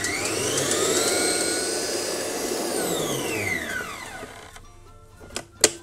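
Kenwood stand mixer whisking egg whites at top speed: the motor's whine climbs as it speeds up, holds over the whisking noise, then winds down and stops as it is switched off. Two sharp clicks follow near the end.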